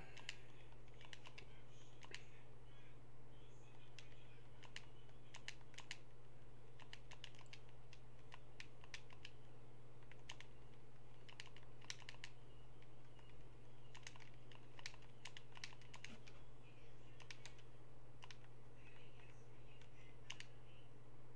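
Typing on a computer keyboard, key clicks coming in scattered quick bursts, over a steady low electrical hum.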